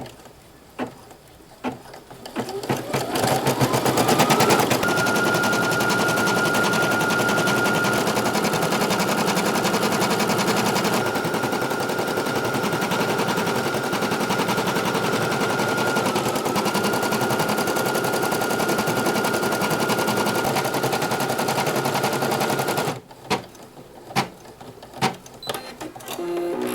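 Embroidery machine starting up and stitching the first colour of a design: a fast, even needle rattle with a steady high motor whine. It builds up over the first few seconds, then stops abruptly about four seconds before the end, followed by a few light clicks.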